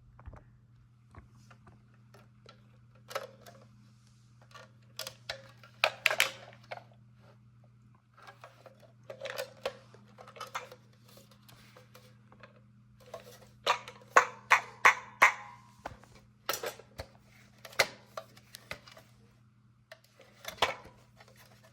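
Irregular clatter and knocks of hard objects being handled, in scattered clusters, over a steady low electrical hum.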